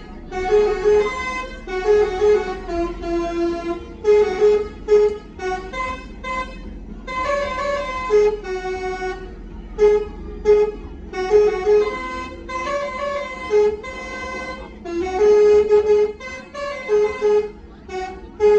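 Telolet basuri horn on a tour bus playing a tune of short and held notes with brief gaps, over the low rumble of the bus.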